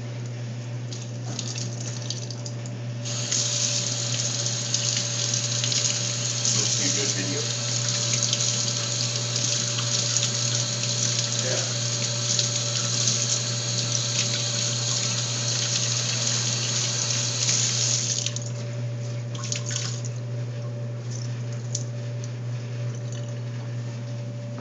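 Tap water running from a wall-mounted utility-sink faucet onto a sock being rinsed by hand. The water comes on about three seconds in and is shut off about fifteen seconds later, leaving quieter handling sounds over a steady low hum.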